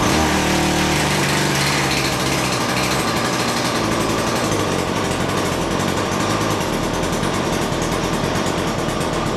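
Stihl FS70 two-stroke strimmer engine catching at once from a recoil pull and running on full choke. It is trying to keep going but can't on full choke: the sign to switch to half choke.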